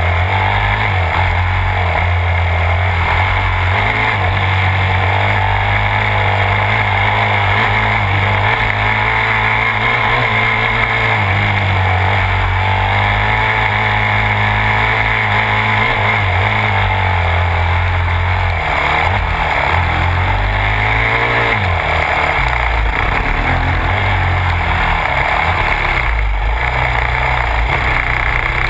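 Yamaha YZ250F's 250 cc four-stroke single-cylinder engine running under load, its pitch rising and falling with the throttle, heard from on the bike.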